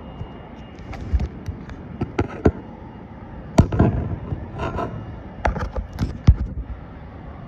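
Handling noise from a phone being moved about: a string of irregular sharp knocks and clicks over a low rumble, the loudest knocks about three and a half and six seconds in.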